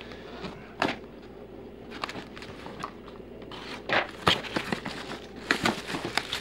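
Cardboard box being handled and opened, with plastic wrapping crinkling as the packed parts are pulled out: irregular rustles and light knocks, the busiest stretches about four seconds in and near the end.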